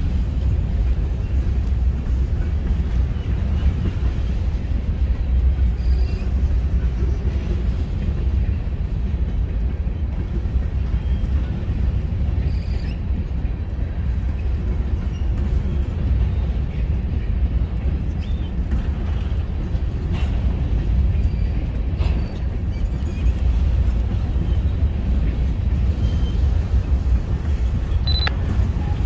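Covered hopper cars of a BNSF grain train rolling past: a steady low rumble of steel wheels on rail, with now and then a short click or clank.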